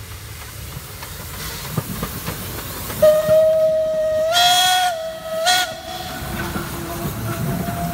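Steam locomotive's whistle blowing one steady note for about three seconds, starting about three seconds in. Its pitch jumps up briefly twice with gushes of steam hiss. Under it is the low rumble of the train rolling into the station.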